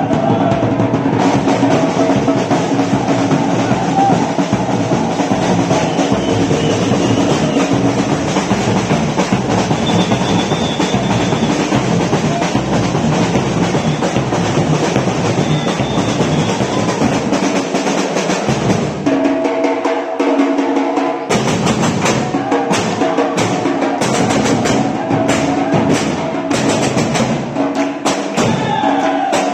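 Batucada percussion music: drums playing together under steady pitched lines. About twenty seconds in the bass drops away and sharp separate drum hits stand out.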